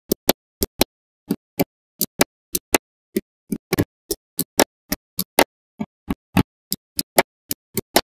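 Small magnetic balls snapping together one after another as a structure is built: a string of sharp clicks, about three or four a second, unevenly spaced, with dead silence between them.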